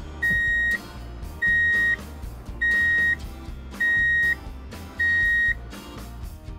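Five electronic beeps, each a single steady tone about half a second long, repeating a little over a second apart over background music.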